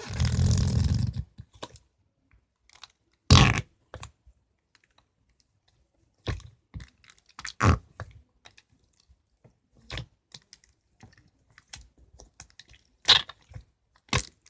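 Noise putty being pressed into its cup, pushing air out past the sides in a string of short squelching, wet-sounding noises. A longer squelch comes first, then a handful of separate ones spread a couple of seconds apart.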